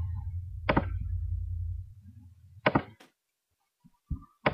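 A few short, sharp computer mouse clicks, three in all, over a low steady hum that fades out about two seconds in.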